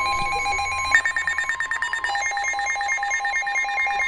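Emergency Alert System alert tones over a broadcast: a steady two-note attention tone. About a second in, a fast pulsing higher tone starts and runs on with it.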